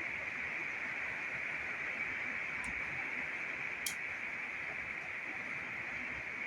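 Two crisp snips of bonsai shears cutting leafy shoots, about a second apart, over a steady hiss.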